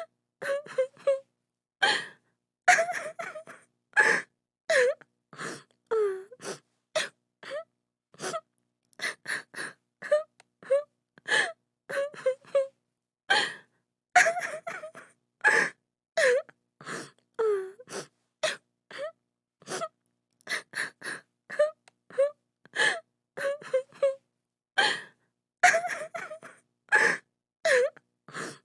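A woman sobbing and crying in short, broken bursts with gasping breaths, one or two a second, some sobs falling in pitch, separated by dead silence.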